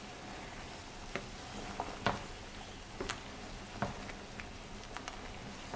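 Pot of red beans boiling in seasoned liquid while a spoon stirs it: a faint, steady bubbling hiss with a handful of scattered sharp clicks.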